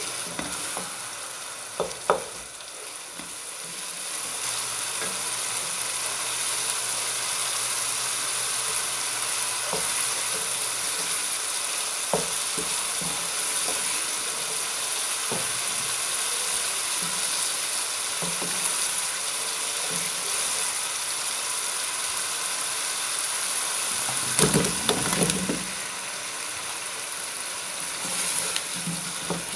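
Chopped onion sizzling in hot oil in a non-stick pan, a steady hiss with the wooden spoon scraping and knocking as it is stirred. Near the end there is a louder clatter and surge of sizzle as pieces of boiled potato go into the pan.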